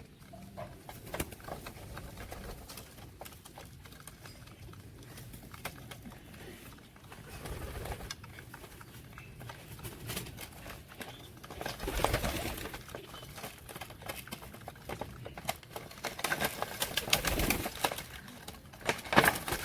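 Pigeons cooing, with scattered clicks and rustles throughout and louder stretches about twelve seconds in and near the end.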